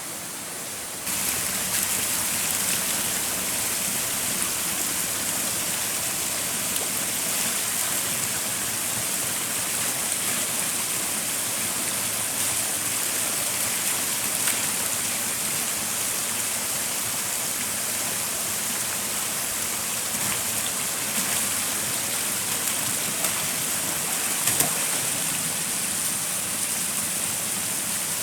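Stream water flowing and splashing steadily, with a few faint knocks here and there.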